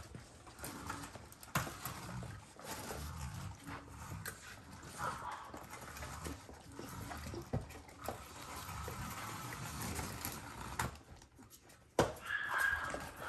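Maltese puppies scuffling and pawing at a plastic puzzle toy: irregular small clicks and knocks, with a sharper, louder knock about twelve seconds in.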